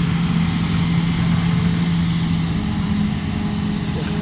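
Hitachi Zaxis 210F hydraulic excavator's diesel engine running at working revs, a loud steady drone whose pitch steps up a little about two and a half seconds in.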